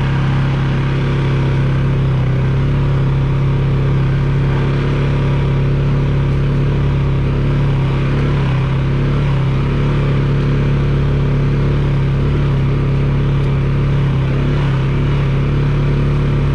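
Polaris 570 ATV's single-cylinder engine running at a steady pace while riding along a dirt trail, a loud even drone.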